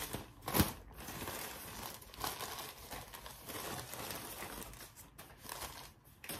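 Plastic packaging crinkling and rustling as the next clothing item is handled and pulled from its bag, with one sharp louder crackle just over half a second in.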